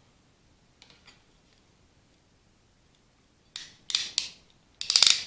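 Hand crimping tool for spark plug wire terminals being handled and squeezed: a few sharp metal clicks and snaps in two quick clusters in the last two seconds, after a faint tick or two about a second in.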